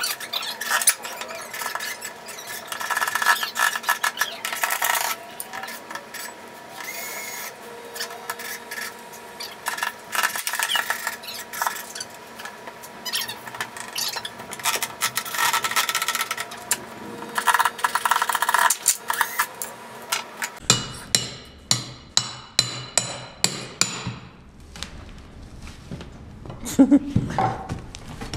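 Cordless drill whining in several short runs, driving screws into wood, with scraping and knocks of hand tools between runs. Near the end, a quick run of evenly spaced clicks, about three a second.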